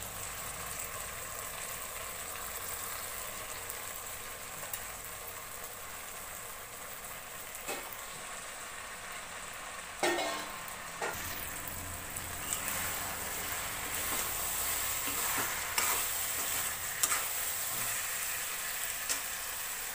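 Fish curry sizzling steadily in a metal kadhai. From about halfway through, a metal spatula stirs it, scraping and clicking against the pan.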